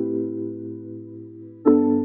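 Background piano music: slow held chords that fade away, with a new chord struck near the end.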